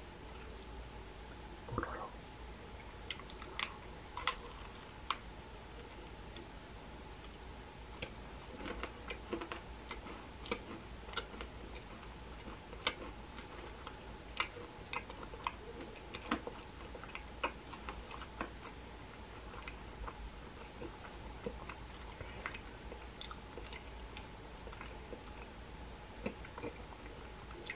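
Chewing and biting into a macaron: scattered crisp clicks and crackles of the shell and mouth sounds over a steady hum. The sound is faint and thin because the intended microphone was not recording.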